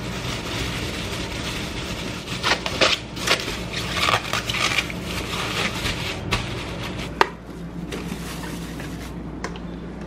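Thin plastic bag crinkling and rustling as rinsed grapes are tipped into it from a metal colander and the bag is wrapped up, with one sharp knock about seven seconds in.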